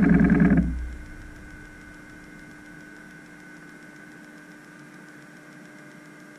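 A loud music phrase cuts off about half a second in, leaving a faint, steady electrical hum with hiss and two constant tones.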